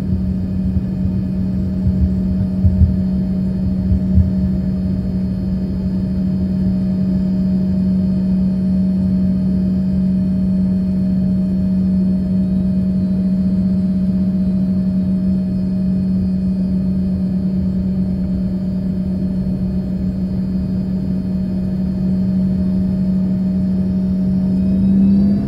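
Cabin sound of an Embraer ERJ-135 regional jet taxiing: the rear-mounted Rolls-Royce AE 3007 turbofans hum steadily at idle over a low rumble, with a few bumps from the wheels in the first few seconds. Near the end the engine pitch starts to rise as power comes up.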